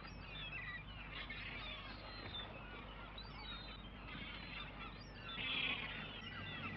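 A flock of gulls calling, many short cries overlapping, with a louder cluster of calls about five and a half seconds in.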